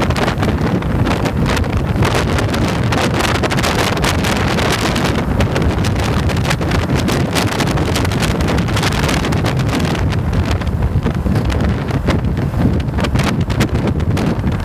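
Heavy wind buffeting on the microphone of a camera mounted on a Yamaha motorcycle riding at road speed, a steady gusty rush with the motorcycle's engine and tyre noise mixed in underneath.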